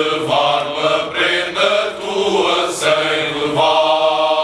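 A male student tuna singing together in chorus with string accompaniment, its phrases ending in a long held chord from about three and a half seconds in.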